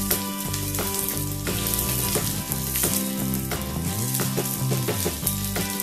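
Coconut oil sizzling hard in a small pan as sliced shallots, dried red chillies and mustard seeds fry for a tempering, with frequent crackles and spatters. Low background music plays under it.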